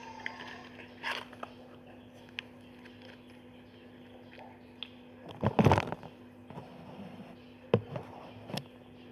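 Homemade slime being handled and mixed: scattered squishing and scraping sounds with small knocks, the loudest cluster about halfway through and two sharper ones near the end, over a steady low hum.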